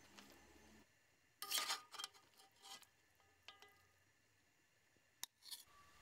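A few short scrapes and clinks of a metal ladle against a cast-iron kazan of stew, the loudest about one and a half seconds in, with a sharp click near the end.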